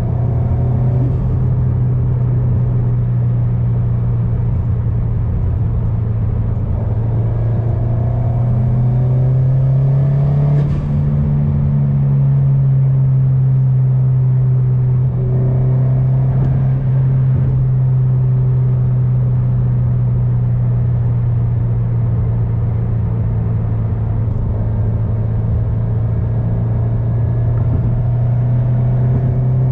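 Turbocharged 2.4-litre flat-four of a 2022 Subaru WRX with a Garrett G30-900 turbo kit and aftermarket cat-back exhaust, cruising at a steady engine speed. The note rises a little about ten seconds in, then holds steady again.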